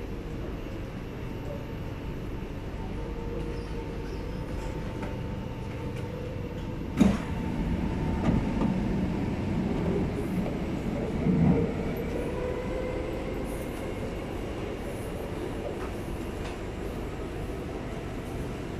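Interior sound of an SMRT C751B metro train: a steady hum with a few faint steady tones. A sharp clunk comes about seven seconds in, followed by a few seconds of louder low rumbling before it settles back to the steady hum.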